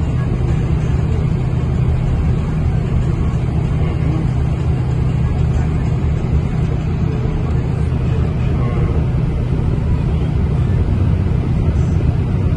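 Steady low rumble of road and engine noise heard from inside a moving vehicle at highway speed.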